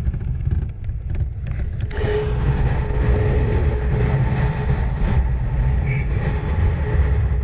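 Motorcycle running while riding along a trail: a steady, uneven low rumble, with a faint steady whine coming in about two seconds in.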